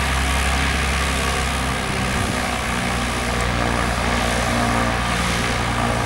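Beech V35 Bonanza's six-cylinder piston engine and propeller running steadily at low taxi power as the plane turns to line up on the runway; the engine note shifts slightly about two seconds in.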